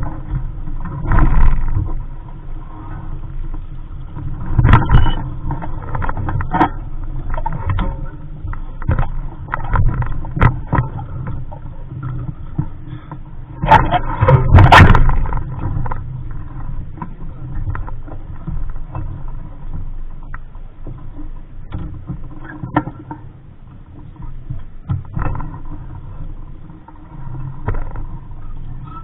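Wind buffeting the microphone aboard a small sailboat, a low rumble that swells in gusts, loudest about a second in, around five seconds in and around fourteen to fifteen seconds in. Short sharp knocks and splashes are scattered through it.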